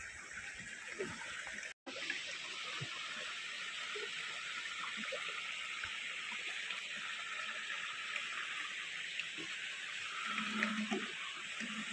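Steady rushing of flowing water, with faint scattered taps and rustles from hands handling fish on the bank. The sound cuts out for an instant about two seconds in.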